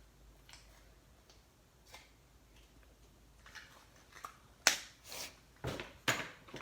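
Fluffy slime made with shaving foam being squeezed and squished by hand: mostly quiet at first, then a series of short wet squelching pops in the second half, the loudest a little under five seconds in.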